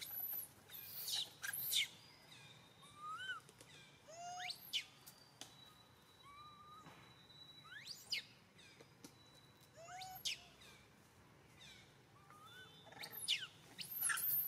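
Birds calling in forest: short chirps and sharp, fast-rising whistled notes every second or two, with a thin steady high whistle held for a few seconds in the middle.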